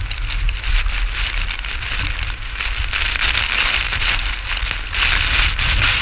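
Waterfall spray and falling water pelting down in a dense spatter of drops over a low rumble of the falls, heavier near the end.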